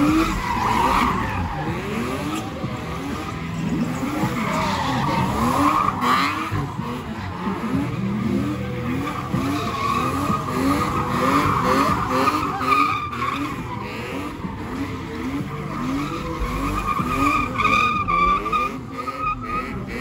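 Red BMW E30 doing burnout donuts: its rear tyres spin and squeal on the asphalt while the engine revs climb again and again, about twice a second, as the throttle is pulsed.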